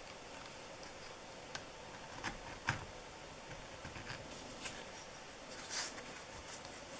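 Leather edge beveler shaving a bevel off the edge of a piece of soft leather: faint, scattered scraping clicks, with a short, louder scrape near the end.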